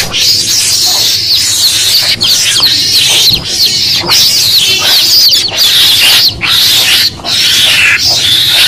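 Mongoose lure call recording: many chicks peeping shrilly and without pause, mixed with a mongoose's calls, played to draw mongooses to a trap.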